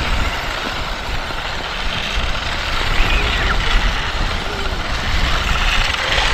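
Remote-control toy cars driving on an asphalt court: a steady whirring noise of their small electric motors and tyres rolling on the pavement.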